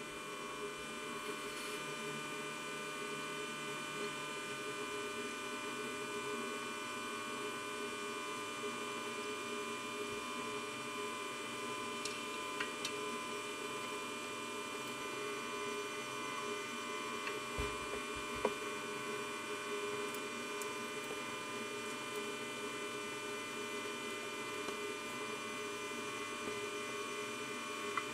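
Steady electrical hum made of several tones held at an even level, with a few faint clicks around the middle.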